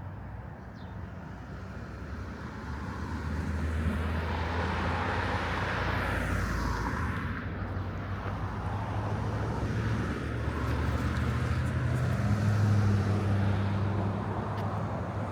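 Motor vehicle engines and tyre noise as traffic drives past. One vehicle swells and passes about six seconds in, and another grows louder near the end.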